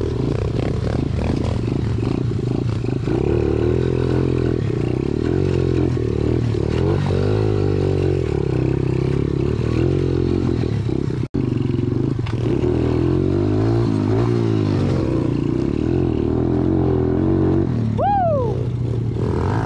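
Dirt bike engine running at low speed, its pitch rising and falling with the throttle as the bike picks its way up a rocky trail, with a momentary dropout about eleven seconds in. Near the end a short falling call rises above the engine.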